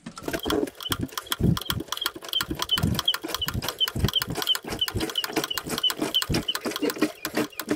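Hand-operated oil drain pump on a Nanni marine diesel being worked quickly, sucking the warmed old engine oil out of the sump through a hose into a container. It gives rapid clicks and knocks, with a short high squeak about three times a second.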